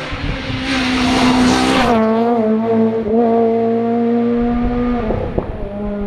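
Rally car passing close at speed with its engine at high revs, and a loud rush of tyre noise as it goes by about a second in. The engine note then holds steady as the car pulls away, with a short crackle near the end.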